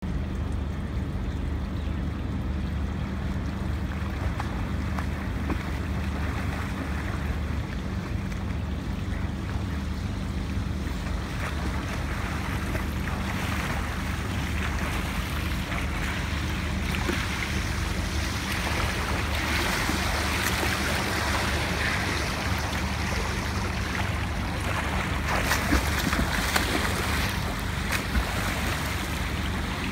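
A swimmer's backstroke kicks and arm strokes splashing in a pool, building up about halfway through, with a few sharper splashes near the end, over a steady low hum.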